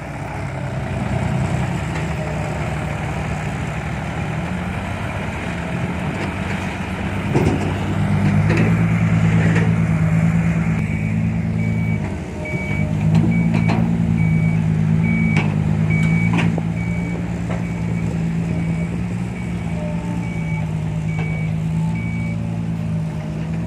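A Kobelco SK120-5 excavator's diesel engine runs steadily under working load, picking up about a third of the way in and dipping briefly near the middle. Through the second half a reversing beeper sounds at an even pace, a little over one beep a second, with a few scattered knocks.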